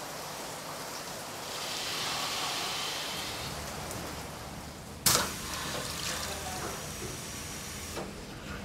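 Water rushing through greenhouse irrigation pipework, swelling and fading in the first few seconds. Then comes a sharp clunk about five seconds in as the plastic pipe coupling of the mobile rose gutter pulls apart, and a smaller knock near the end.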